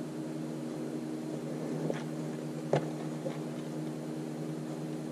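A steady low hum of the room, with a light tap about two seconds in and a sharper plastic click a little later as a clear plastic bead organizer box is handled and set on the table.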